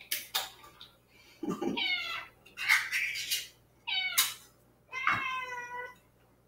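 Domestic cat meowing repeatedly, about four separate calls a second or so apart, begging for the wet food being prepared. A couple of sharp clicks at the start.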